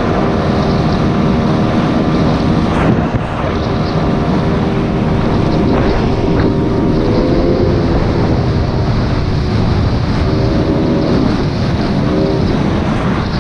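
Small boat's outboard motor running under way, its pitch wavering up and down at times, with wind rushing on the microphone.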